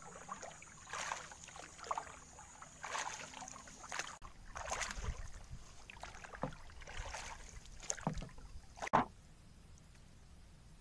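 Paddle strokes from a small wooden boat: the blade splashes and swishes in the water about once a second, ending about nine seconds in with one last louder splash.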